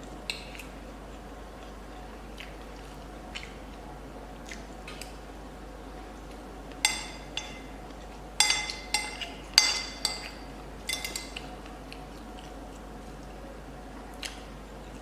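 Cutlery clinking against a plate while eating: a few light taps at first, then a run of louder ringing clinks about halfway through.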